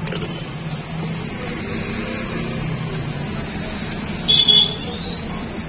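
Steady street traffic rumble, with two short shrill tones near the end.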